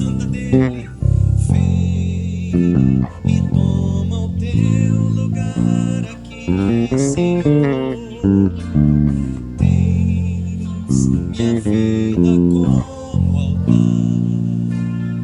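Electric bass guitar playing a melodic line with the band in an instrumental passage of a worship song, with some notes sliding in pitch.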